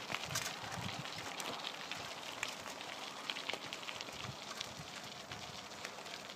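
Bicycle tyres rolling over a gravel path: a steady crackle of small stones with scattered sharp clicks.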